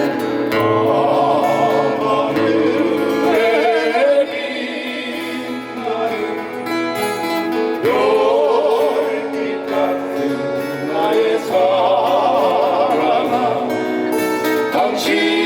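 Live acoustic ballad music: a held, wavering melody line over acoustic guitar chords, with no sung words.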